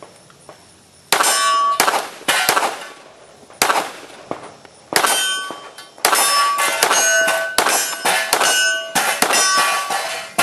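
A string of handgun shots, starting about a second in, with hits on steel targets ringing out as clangs after many of the shots.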